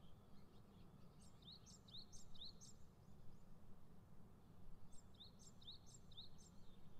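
Faint bird chirping over quiet background noise: two runs of quick rising chirps, about four in each, one a little over a second in and another around five seconds in.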